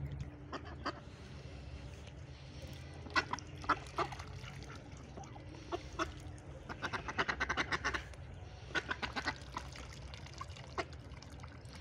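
White domestic ducks quacking: scattered single quacks, then a fast run of quacks about seven seconds in and a shorter run soon after.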